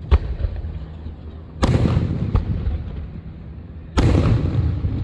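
Aerial fireworks bursting: a sharp bang just after the start, then two loud bursts about a second and a half in and again about four seconds in, each trailing off in a rumble with crackle.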